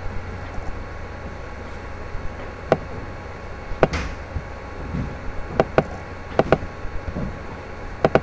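Steady low hum under a faint hiss, with short sharp clicks scattered through, several of them in quick pairs.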